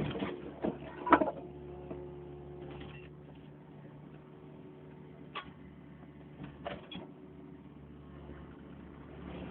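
Backhoe's diesel engine running steadily, with a few sharp metallic knocks from the machine: a loud one about a second in and more around the middle.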